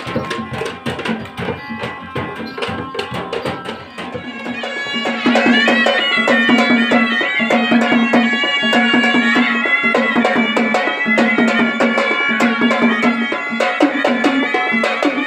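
Village folk band of sanai (shehnai-type reed pipes) and a hand drum. The first few seconds are mostly fast drumbeats. About five seconds in, the loud reedy pipe melody comes in over a steady held low note, with the drum going on underneath.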